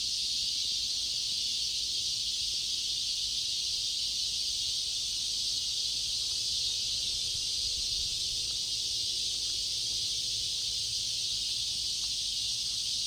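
A chorus of cicadas buzzing: one steady, unbroken high-pitched drone that holds at an even level throughout.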